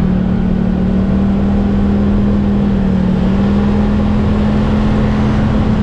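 Small automatic motor scooter's engine running at a steady cruising speed while being ridden, with a steady drone whose pitch edges slightly higher about three seconds in, over a low rumble.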